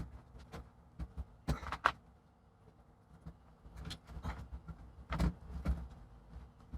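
Light plastic clicks and knocks as a laptop DC power jack is pushed and worked into its channels in a plastic bottom case. The knocks are scattered and irregular, with a pair about one and a half seconds in and a few more a little after five seconds.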